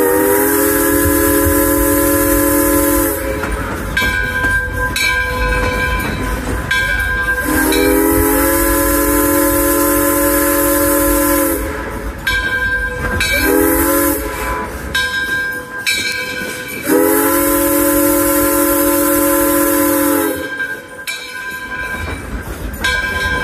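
Steam locomotive Alco No. 18's chime whistle sounding the grade-crossing signal: two long blasts, a short one and a long one. Under it the train rumbles along with clicks from the rail joints.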